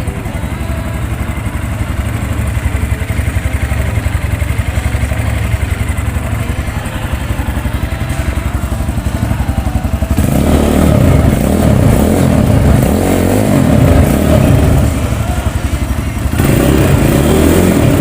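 Vento Crossmax 250 Pro motorcycle's single-cylinder engine idling steadily, then revved repeatedly from about ten seconds in. It drops back briefly near the end before a final rev.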